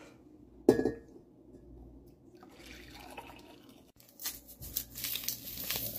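A single sharp knock a little under a second in, then from about four seconds in, boiled water poured from a stainless steel saucepan into a ceramic mug, splashing steadily.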